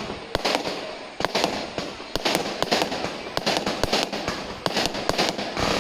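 Fireworks display: aerial shells bursting in quick, irregular succession, a string of sharp bangs, each trailing off in an echo.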